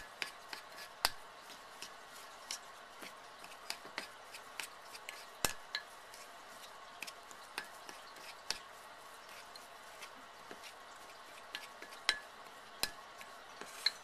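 Metal spoon scraping and clinking against a ceramic mug while mixing a thick, crumbly cookie dough, with irregular sharp clinks about one or two a second.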